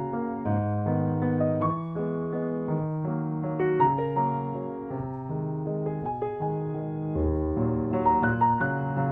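Piano music: slow chords and a melody over held bass notes.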